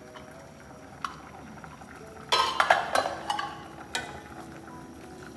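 Kitchenware being handled: a single knock about a second in, then a loud burst of clinking and clattering for about a second midway, and another knock near four seconds.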